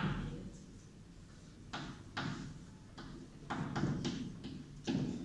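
Chalk tapping and scraping on a blackboard as a circuit diagram is drawn: a series of short, sharp knocks, several in a quick cluster about three and a half seconds in.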